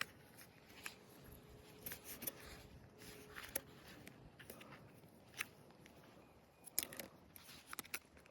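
Faint, scattered small clicks and rustles of Ned rig fishing tackle and its plastic packaging being handled, busier near the end.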